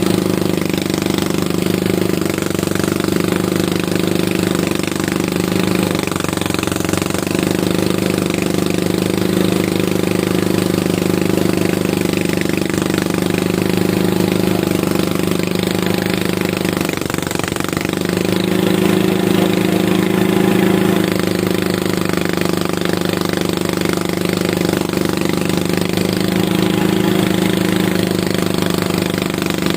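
Engine of a rice harvesting machine running steadily at a constant speed, with a fast, even pulse.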